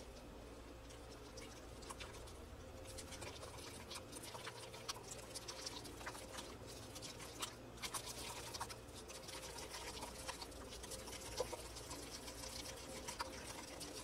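Small wire whisk beating egg and cream into mug-cake batter in a glass mug: a quick, irregular run of faint clicks and scrapes of the wires against the glass.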